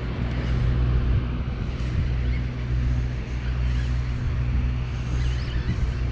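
Boat's engine running steadily: a low drone made of several even hum tones, with a steady hiss above it.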